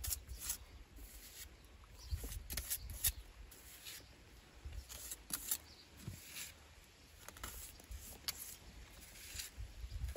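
Irregular scraping and tapping of a steel pointing trowel working lime mortar into the joints of stonework, several short scrapes and clicks a second, over a low rumble.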